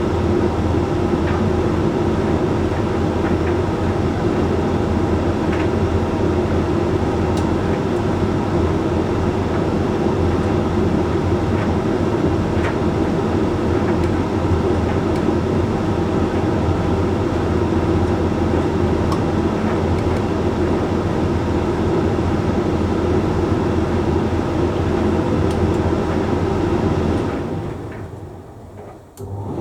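Hoover Link X Care condenser tumble dryer running mid-cycle: a steady drum-motor and fan hum with faint occasional ticks. Near the end the sound dies away for a couple of seconds, then comes back suddenly.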